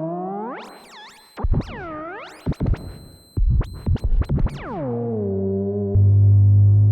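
Budget AliExpress theremin playing one of its built-in electronic voices: bright pitched tones swooping down and back up in repeated arcs, broken by bursts of crackly noise in the middle. It then glides down and settles into a steady low held note that gets louder about six seconds in, with a little reverb.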